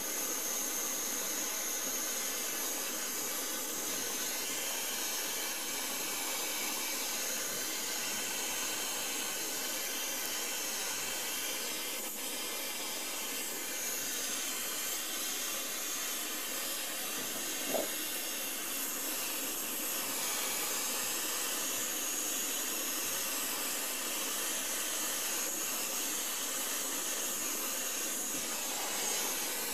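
Handheld gas torch flame hissing steadily as it heats a copper joint for soft soldering, with one small tick about eighteen seconds in.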